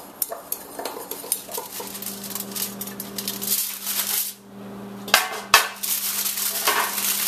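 A metal spoon stirring sugar and cinnamon in a glass measuring cup, clinking against the glass, then aluminium foil crinkling as baked balls are lifted off a foil-lined baking sheet. A steady low hum runs under the foil sounds from about two seconds in.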